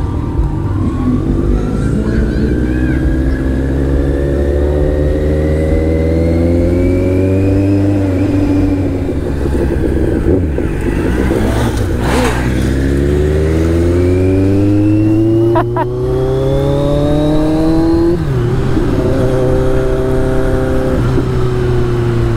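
Kawasaki Z900's inline-four engine pulling up through the gears: its pitch climbs slowly, drops at a shift about eight seconds in, climbs again, drops at another shift about eighteen seconds in, then holds steady.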